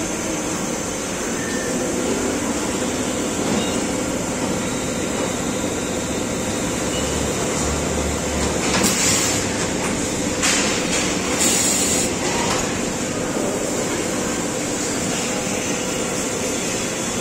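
Hartford VMC-1600A CNC vertical machining center running a machining cycle: a steady mechanical whir of the spindle and machine, with a few short hissing bursts about nine to twelve seconds in.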